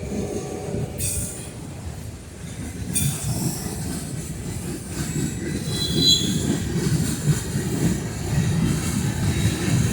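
Norfolk Southern freight train rolling past, its wheels on the rail making a steady low rumble. Sharp clacks come about one and three seconds in, and a brief high wheel squeal about six seconds in.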